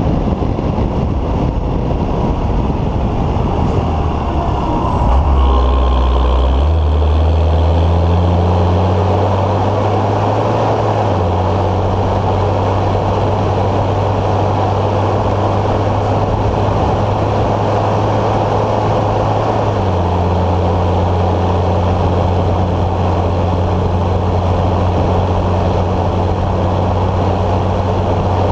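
Deutz-Fahr Agrotron 115 MK3 tractor's 4.8-litre Deutz BF6M 1012 EC six-cylinder diesel running on the road. Its note drops low about five seconds in, then climbs over the next few seconds and holds steady, with small steps in pitch twice.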